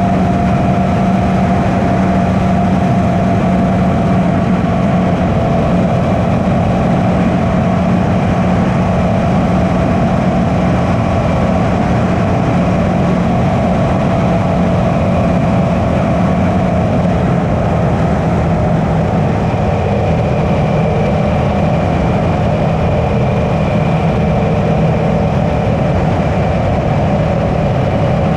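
Suzuki V-Strom 650's V-twin engine running steadily with its stock exhaust while the bike is ridden; the engine pitch holds even and drops slightly about two-thirds of the way through.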